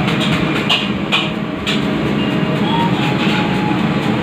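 Cabbage being shredded on a handheld metal slicer: repeated rasping strokes over a steady low rumble.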